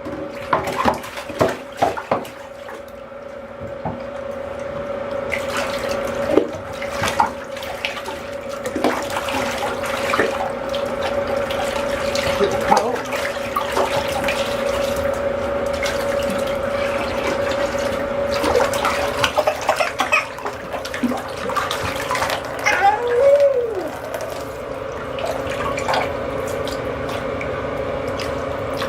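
Water running from a bathtub tap, with splashes and small knocks. About three-quarters of the way in there is one short rising-and-falling baby squeal.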